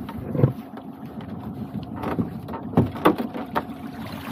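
A netted crab pot being hauled up out of the sea over the side of a small boat, water splashing and streaming off it, with several sharp knocks as the pot strikes the gunwale. A steady low hum runs underneath.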